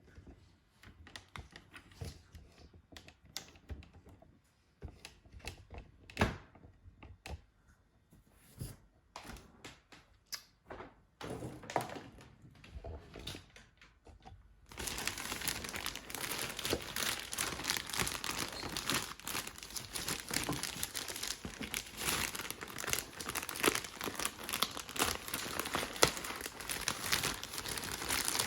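Packaging handled during an unboxing: scattered knocks and taps against the box, then from about halfway a steady, continuous crinkling and rustling of the wrapping as it is pulled open.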